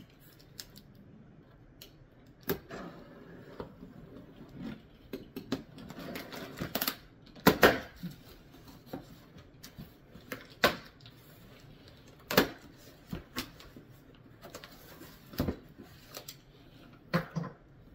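Cardboard shipping box being opened with a box cutter: the blade slicing through packing tape, then the flaps pulled open and the box handled, in a string of irregular scrapes, rips, clicks and knocks.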